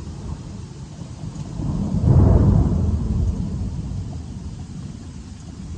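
A roll of thunder swells about two seconds in and rumbles away over the next few seconds, over a steady hiss of rain and hail.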